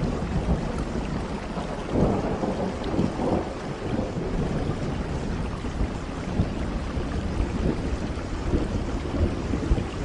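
Steady rain falling, with a low rumble of thunder that swells about two seconds in and again a second later.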